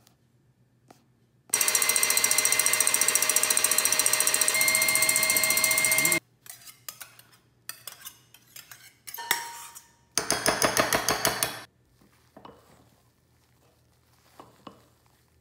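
Electric stand mixer with a wire whisk whipping egg whites, running steadily for about five seconds with a motor whine that steps up slightly partway. Then come clattering kitchen utensils and a second short burst of fast, even rattling, followed by soft scraping as the whites are folded in.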